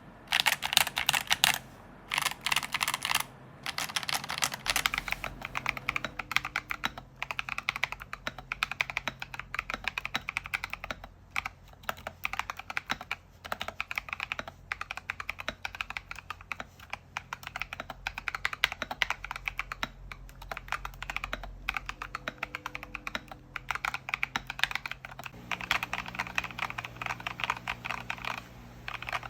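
Typing on a KEMOVE Snowfox DK61 60% mechanical keyboard fitted with lubed and filmed FEKER Holy Panda tactile switches on a brass plate. Keystrokes clack in quick succession, in short bursts with brief breaks for the first few seconds, then as a steady stream.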